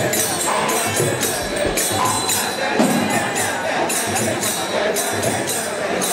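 Temple festival music for the deity's procession: percussion struck in a steady rhythm of about two to three strokes a second, over a dense mix of pitched sound.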